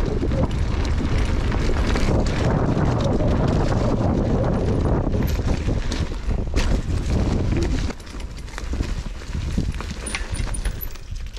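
Mountain bike ridden along a dirt forest trail covered in fallen leaves: wind buffeting the action camera's microphone, tyre noise on dirt and leaves, and the bike knocking and rattling over bumps. The rumble drops about eight seconds in.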